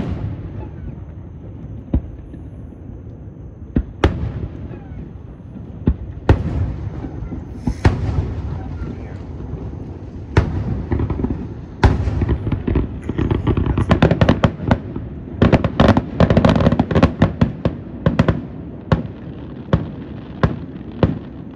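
Aerial fireworks shells bursting: scattered booms at first, then a dense stretch of rapid bangs and crackling about halfway through, thinning out near the end.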